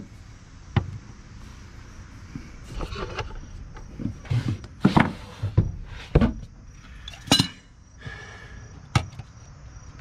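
Scattered knocks and clicks, about eight in ten seconds, from tools and hardware being handled at a newly mounted outdoor GFCI receptacle.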